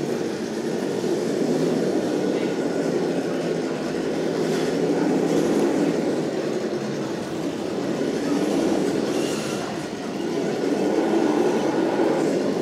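Scale RC crawler truck driving slowly over a bridge of wooden slats: a steady rumbling clatter of tyres on the slats, with a faint whine from its motor and gears, swelling and fading slowly.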